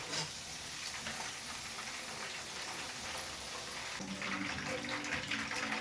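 Hot cooking oil sizzling steadily in a frying pan as the last potato chips are lifted out with a slotted spoon. A faint low hum comes in about four seconds in.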